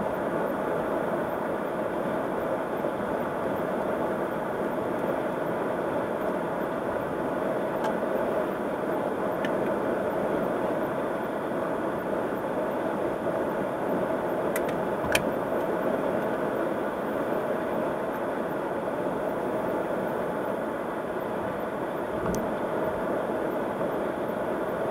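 Steady road noise of a car cruising at highway speed, heard from inside the cabin: an even rush of tyre and wind noise from driving on concrete pavement. A few faint ticks break through, with one sharper click about fifteen seconds in.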